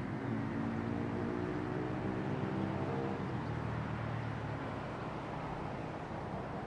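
Outdoor background rumble with a low, droning pitched hum on top that fades out about three seconds in.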